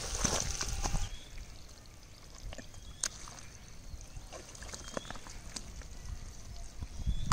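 Wet mud squelching and sloshing as hands dig and scoop through it, busiest and loudest in the first second, then quieter with scattered wet slaps and clicks.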